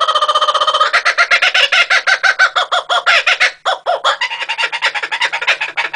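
Laughing kookaburras calling: a long run of rapid cackling notes, about nine a second, with a brief break a little past halfway.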